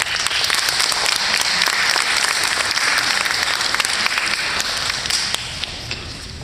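Audience applauding: many hands clapping together, loud at first and dying down near the end.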